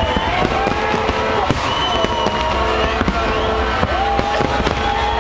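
Fireworks display going off: a dense run of bangs and crackles over a steady low rumble.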